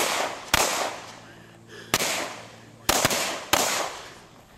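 Handgun shots, about six in four seconds at uneven spacing, each crack followed by a long echoing decay. Two come close together about three seconds in.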